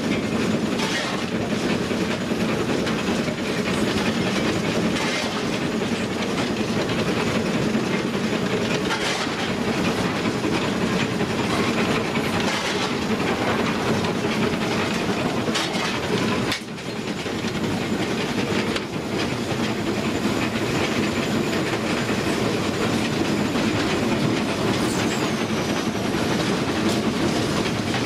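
Footplate noise of GWR Hall class 4-6-0 steam locomotive 6990 Witherslack Hall running along the line: a steady din of the engine and its wheels on the rails, heard from inside the cab, dipping briefly about two thirds of the way through.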